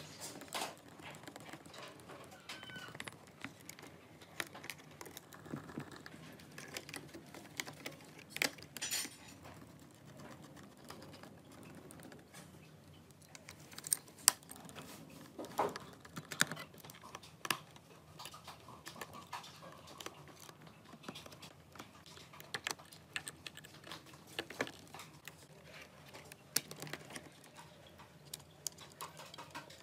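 Small scattered clicks, taps and scrapes of hands and a small tool handling the internal parts of an opened MacBook: the wireless card, antenna cable and other components. A couple of sharper clicks come about halfway through.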